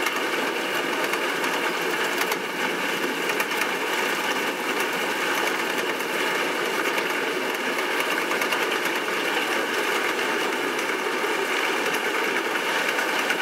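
Steady rattling and vibration inside a moving bus: the window frame and panels buzzing over the engine and road noise.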